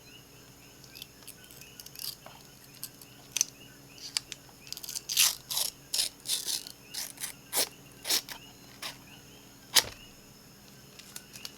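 Protective plastic film being peeled off metal nail-stamping plates: a run of sticky crackling and tearing noises, densest in the middle, with one sharp snap near the end.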